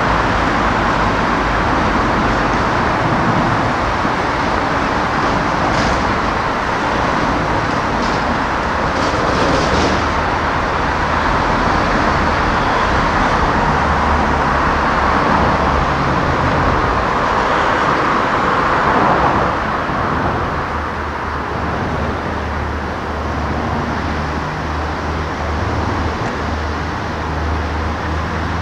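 City street traffic: car tyre and engine noise passing on the road, loudest just before twenty seconds in and then easing off a little.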